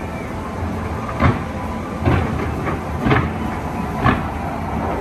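Fireworks display: a steady rumble and crackle with sharp bangs about once a second.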